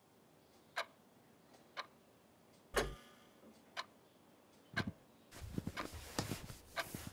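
A clock ticking, one sharp tick a second, one of them heavier with a low thump. About five seconds in, a busier jumble of rustling and knocks starts up.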